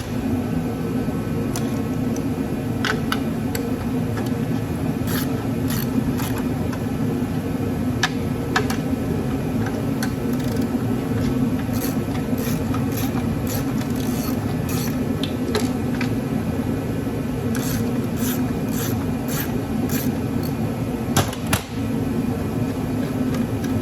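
Steady low hum of a running fan or motor, with scattered sharp clicks and taps of hand tools working on metal parts.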